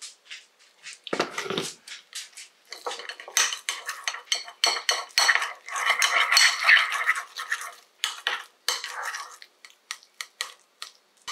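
A spoon stirring and scraping in a bowl: a single low knock about a second in, then quick clinks and scrapes, densest in the middle and thinning toward the end. It is hot water being mixed into powdered freeze-dried parsnip to rehydrate it.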